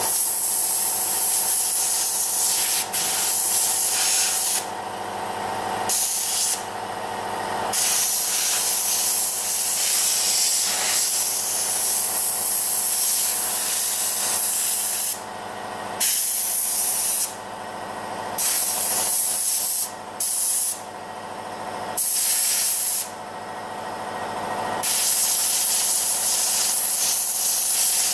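Compressed-air blow gun hissing in long blasts, cut off briefly about six times as the trigger is let go, blowing excess wet leather colour out of the seat's pleats and cracks.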